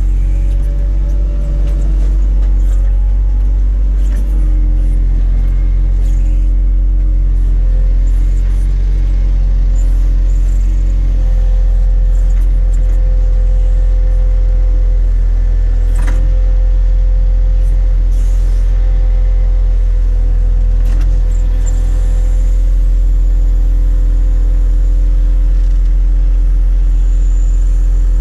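Grape harvester's diesel engine and machinery running steadily under load, heard from inside its cab as a deep, even drone with a faint steady hum above it. A couple of light clicks come partway through.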